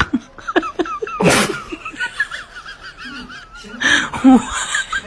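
A person laughing in high, wavering peals, broken by a short noisy burst about a second in and another near the end.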